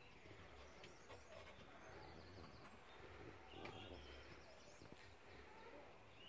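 Near silence: faint room tone with a few faint, short high chirps.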